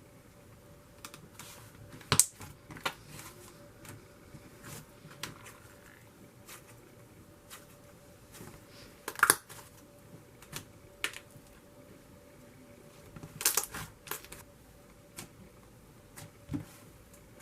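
Icy slime being played with by hand, giving irregular sizzly clicks and pops. The loudest come about two, nine and thirteen seconds in.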